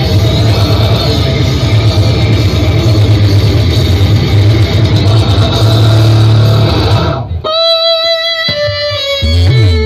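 Loud, bass-heavy music playing from a miniature sound-system speaker stack pushed for an SPL (loudness) test, dense and thick with deep bass. About seven seconds in it cuts abruptly to cleaner, sustained guitar-like notes, with a falling bass sweep near the end.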